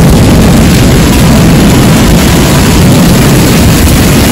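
Heavy thunderstorm downpour: a loud, steady rush of rain with a deep rumble of wind buffeting the microphone.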